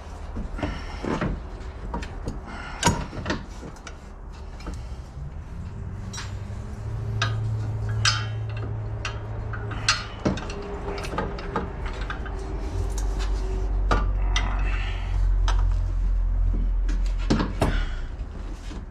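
Metal clanks, clinks and knocks of hand tools and suspension parts being handled while a front strut is fitted and its bolts are started. A low steady hum comes in about six seconds in and stops near the end.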